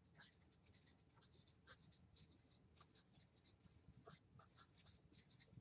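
Felt-tip marker writing on flip-chart paper: a quick, irregular run of short, faint strokes.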